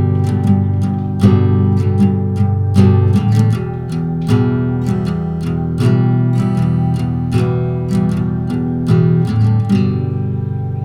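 Background music: a plucked, guitar-like instrument picking notes over changing chords, with the picking stopping near the end and a last chord left to ring.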